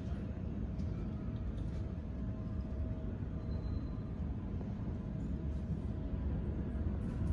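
Steady low rumble of jet airliner engines, muffled as if through the terminal window glass, with a faint steady hum above it.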